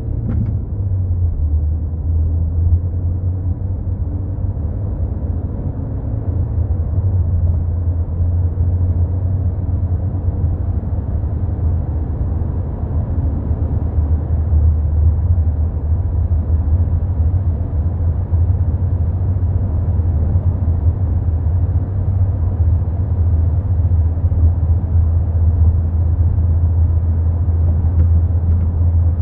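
Steady low rumble of a Volkswagen Golf Mk4 driving, with a faint click about half a second in.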